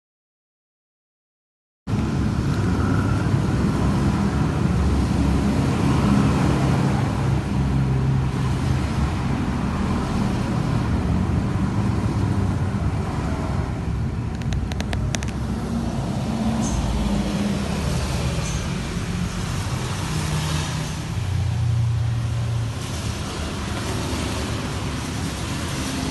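Steady road traffic noise from passing cars, starting after about two seconds of silence.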